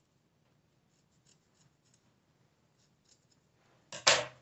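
Scissors cutting through a thick ribbed knit sweater sleeve: faint small snips, then one much louder sharp clack about four seconds in.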